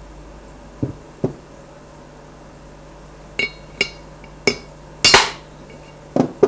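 A hammer striking a metal drift to drive the rotary valve drive shaft's outer bearing out of a Rotax engine crankcase: about eight irregular blows, the first two dull, the later ones ringing and metallic, the loudest about five seconds in.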